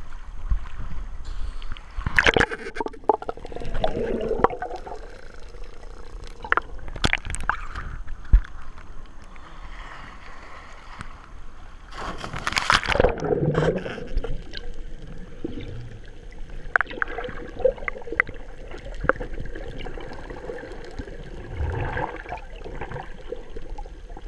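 Choppy sea water sloshing and gurgling against a camera held at the waterline, the camera dipping in and out of the water. Irregular splashes throughout, with louder rushes of water about two seconds in and again around twelve to thirteen seconds in.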